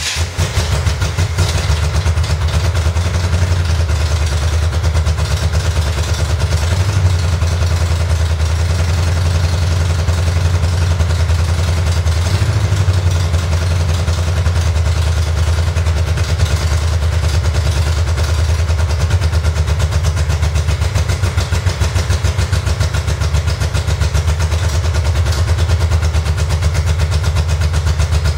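Car engine just after starting, rising to a steady idle within about the first second and running evenly from then on.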